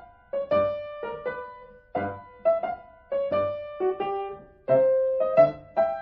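Background music: a piano playing a melody of single struck notes, about two or three a second, each ringing and fading.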